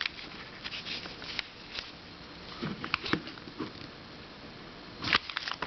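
Plastic puzzle cubes being handled: scattered light clicks and knocks, with a louder cluster of knocks about five seconds in.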